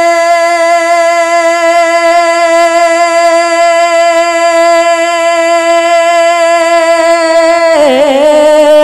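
A man's solo singing voice holding one long, steady note with slight vibrato in a devotional naat recitation, then breaking into a wavering, ornamented run of pitches near the end.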